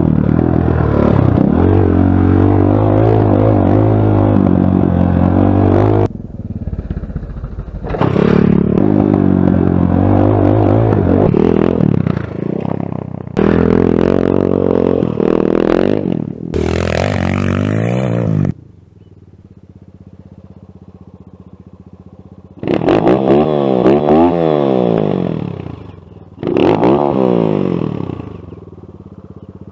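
MiniRocket Hurricane 250cc four-stroke single-cylinder pit bike engine under way on a dirt track, the throttle opening and closing so the engine note rises and falls in repeated bursts. It goes faint for a few seconds in the second half, then comes back loud.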